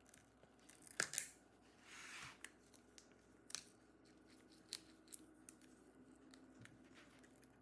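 Quiet handling noise as a glued laptop battery pack is pried out with a plastic pry tool: scattered sharp clicks, the loudest two about a second in, and a short soft tearing hiss around two seconds in as the adhesive lets go.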